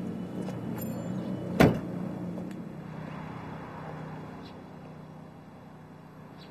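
A pickup truck's door slams shut once, sharply, about a second and a half in, over a low steady hum that fades toward the end.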